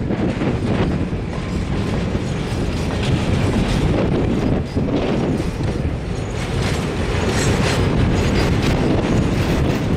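Freight train of grain hopper cars rolling past close by: a steady rumble of steel wheels on the rails, with irregular clicks as the wheels pass over rail joints.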